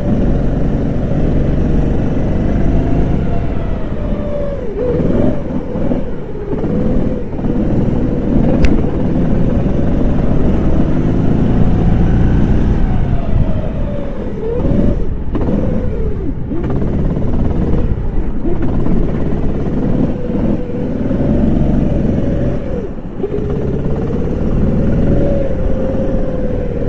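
Go-kart engine heard onboard, running at high revs and rising and falling in pitch, with several sharp drops as the throttle is lifted for corners and then picks up again.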